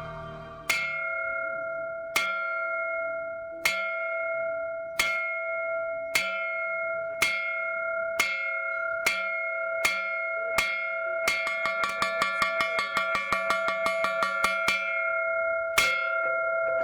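A single bell struck over and over, each stroke ringing on at the same pitch. The strokes come faster and faster into a rapid roll, then stop, and one last stroke rings out.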